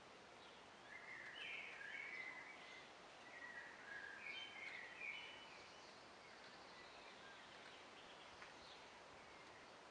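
Faint bird chirping: a run of short, high calls in the first half, over a low steady background hiss.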